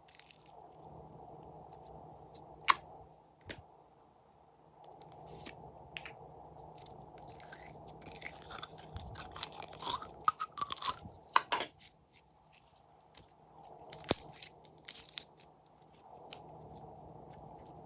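Slime being squished and mixed by hand: wet clicks, pops and crackles over a soft hiss, with a busier run of sticky snaps about halfway through.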